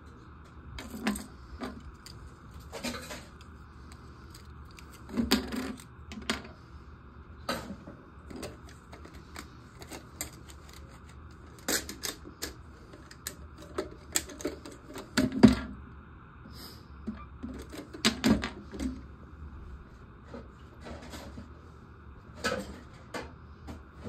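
Plastic toilet fill-valve parts being handled and set down on a porcelain tank lid: scattered irregular clicks and light knocks, a few of them louder.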